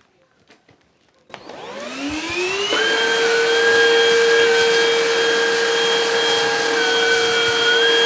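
PrettyCare W100 cordless stick vacuum switched on after a few faint clicks, its motor spinning up with a rising whine over about a second and a half. It then runs at a steady high-pitched whine as the powered brush head is pushed over carpet.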